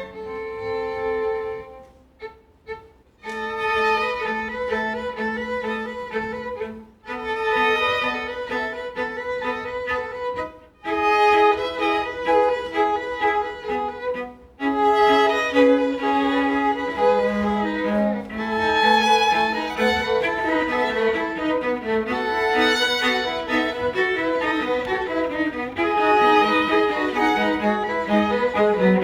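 Bowed strings, led by violin with lower strings beneath, playing a live student composition. The first half comes in phrases broken by short pauses; the second half plays on without a break.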